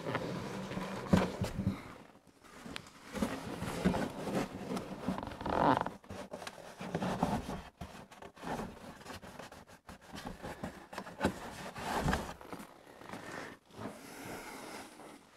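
Hands pressing and rubbing a strip of gummed tape down along the inside bottom of a cardboard box: intermittent scraping and rubbing on the cardboard, with occasional knocks against the box.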